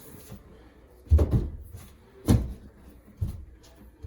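Heavy stone vanity countertop being set down and shifted on its wooden cabinet: three dull knocks about a second apart as the slab settles into place.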